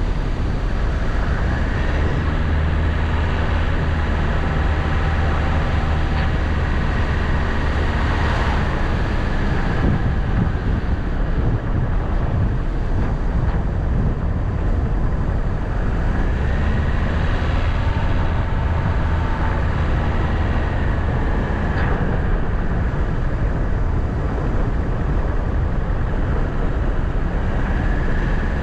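A vehicle driving along a road: steady engine and road noise throughout, with the engine's pitch rising and then holding a few times.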